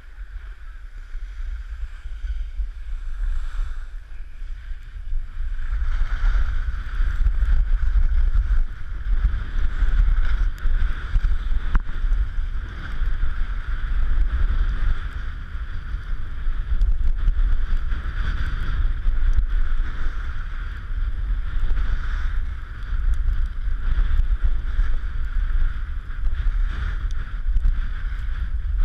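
Wind buffeting the microphone of a helmet camera as a low rumble, over the steady hiss of snowblades sliding and scraping on packed snow. Both grow louder about six seconds in as speed builds on the descent.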